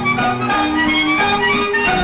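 Instrumental interlude of a karaoke backing track for a Tamil film song, with held melody notes over an accompaniment and no singing.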